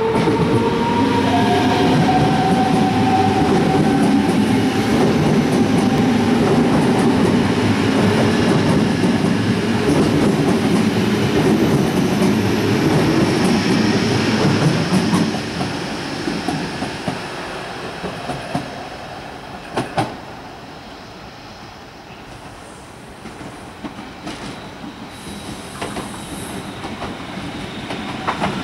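DB Class 425 electric multiple unit, two sets coupled, running close past along the platform: a loud, dense rumble with a high whine that slides slightly lower in pitch at first. About fifteen seconds in it fades to a quieter train sound from a farther track, with a few sharp clicks.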